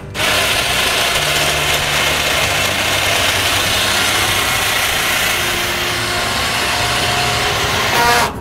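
Engine of a work barge running steadily: a loud, even hum with a dense hiss over it.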